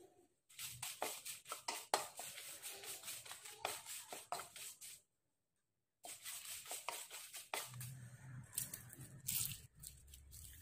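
Dry red chillies and fresh curry leaves crackling and rustling as they are dry-roasted and stirred with a wooden spatula in a non-stick kadai. The crackle is dense and crisp, breaks off for about a second midway, then resumes.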